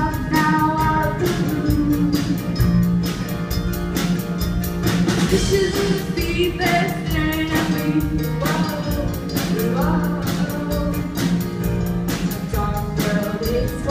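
A rock band playing live: a drum kit keeps a steady beat of about four cymbal strokes a second under held low notes, while a voice sings the melody over it.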